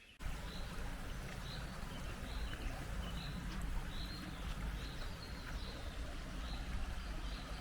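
Wind rumbling on the microphone outdoors, with short high chirps repeating about twice a second over it.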